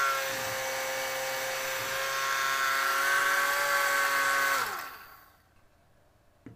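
The small battery-powered DC motors of a 3D-printed bubble blower run with a steady whine, driving the propeller fan and the geared drive to the bubble wheel. About four and a half seconds in they wind down and stop. A faint click follows near the end.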